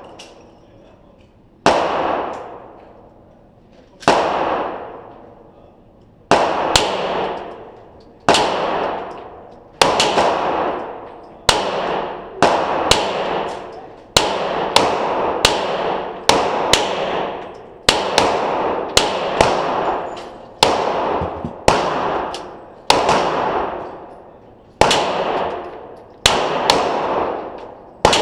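Glock 34 9mm pistol fired about twenty times, each shot followed by the ringing clang of a hit on a steel target. The shots come about two seconds apart at first, then quicken to roughly one a second.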